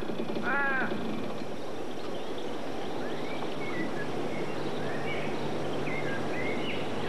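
Rural outdoor ambience with small birds chirping from about three seconds in. In the first second a repeated rising-and-falling call sounds, and a faint low hum runs through the middle.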